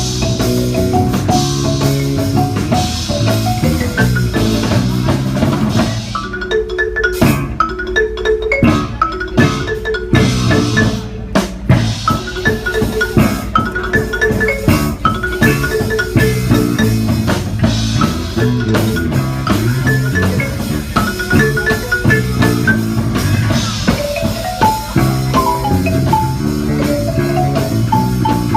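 Marimba playing a fast, rhythmic pop arrangement over a bass line and drums. About six seconds in, the high end thins out for a few seconds of sparser, accented hits, and then the full groove returns.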